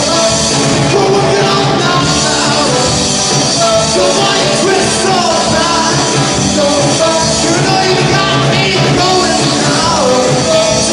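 Live rock band playing: electric guitar and drum kit, with a male lead vocal singing over them.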